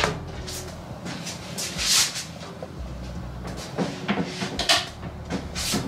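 Knocks and scraping rustles of handling in a cramped space, with a louder scrape about two seconds in and another near the end.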